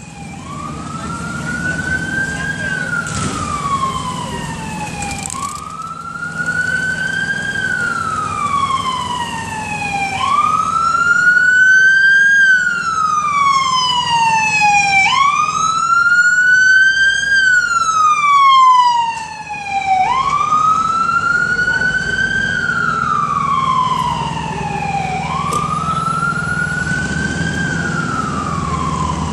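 Ambulance siren sounding a wail: a loud tone that slowly rises, then falls, repeating about every four to five seconds, over a steady low rumble.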